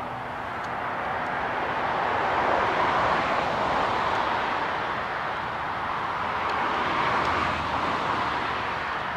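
Jet aircraft engine noise: a broad rushing roar that swells a couple of seconds in, eases, then swells again before fading slightly.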